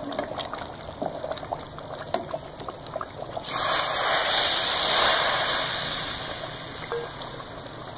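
Hot chili oil being poured onto simmering nihari: light crackling and popping, then about three and a half seconds in a sudden loud sizzle that slowly dies away over a few seconds.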